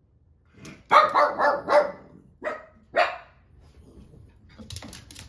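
Small dog barking excitedly at a door: a quick run of sharp barks, two more spaced out after it, then faint clicking near the end.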